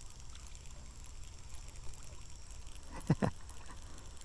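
A small perch hooked on light tackle splashing at the pond surface as it is reeled in, with two short, sharp splashes close together about three seconds in, over a faint, steady outdoor background.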